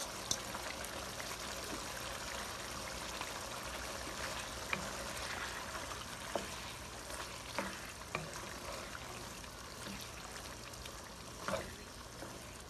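Pot of braised beef tendon, shank and white radish simmering with a steady hiss, while a wooden spatula stirs it, making a few light knocks against the pot.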